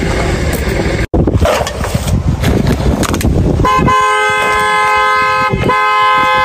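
Car horn sounding in long held blasts, starting a little past halfway and briefly broken once, honking at someone blocking the lane to clear the way. Before it there is a stretch of steady noise.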